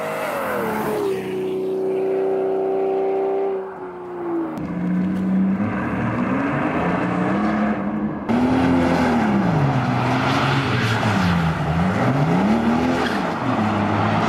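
Mercedes-Benz S-Class sedan engines. First one drives by, its engine note dropping and then holding steady. Then one revs up and down repeatedly while doing donuts, with heavy tyre noise from about eight seconds in.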